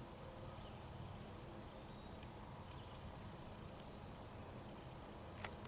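Faint woodland ambience: a thin, steady, high insect drone over a low rumble, with one sharp click near the end.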